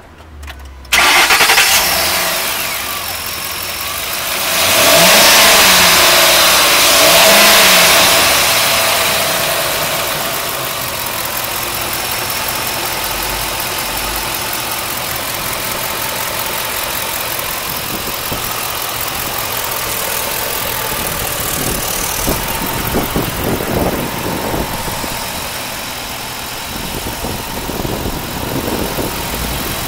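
Ford F-250's 5.4-litre V8 starting about a second in and revved twice a few seconds later, each rev rising and falling. It then settles to a steady idle.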